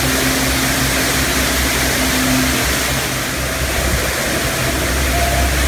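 Loud, steady rush of falling water from a water-park waterfall, with a steady low hum underneath.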